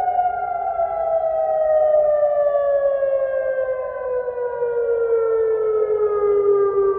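Civil-defence air-raid siren sounding a missile-attack warning: one long, slow wail falling steadily in pitch.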